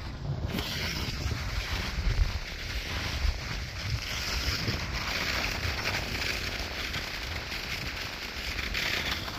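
Wooden dog sled pulled over snow: a steady hiss of the sled sliding on the snow, with wind buffeting the microphone in a low, uneven rumble. The hiss sets in about half a second in.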